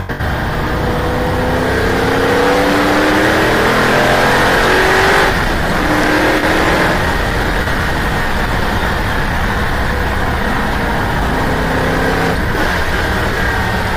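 Racing car at speed heard onboard, its engine note climbing steadily under acceleration for several seconds, then dropping away about five seconds in as the driver lifts off. Heavy wind and road noise runs underneath.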